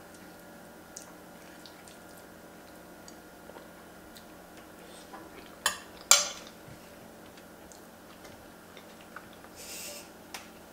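Metal spoon clinking twice against a ceramic baking dish a little past halfway, the second clink ringing briefly. Faint chewing and small eating clicks fill the rest.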